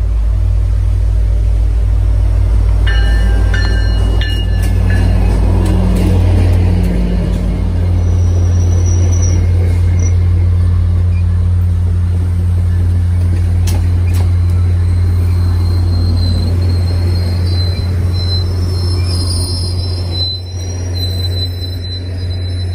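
MBTA commuter train passing: the diesel locomotive's engine gives a loud steady low drone as it comes by, followed by coaches rolling past. Brief high-pitched wheel squeals come a few seconds in and again near the end.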